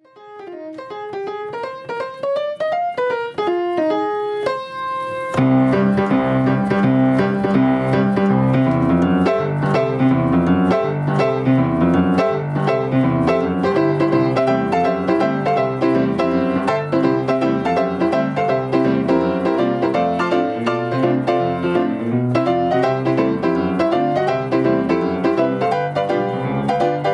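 Piano music. It opens with a run of single notes, then about five seconds in a fuller accompaniment joins, with bass notes and chords in a steady beat.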